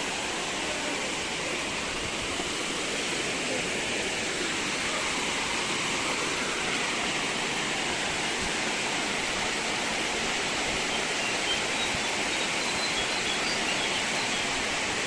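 Waterfall's falling water making a steady, even rush. A few faint high chirps come in near the end.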